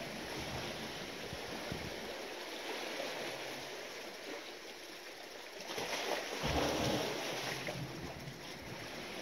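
Sea waves washing, with wind buffeting the microphone; a louder surge of water comes about six seconds in.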